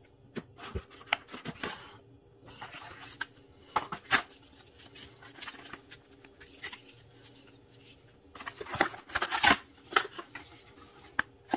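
Unpacking noise: a nylon carry pouch and a cardboard box being handled, with irregular rustling and scraping and scattered sharp clicks and taps. A louder stretch of rustling comes about three quarters of the way through.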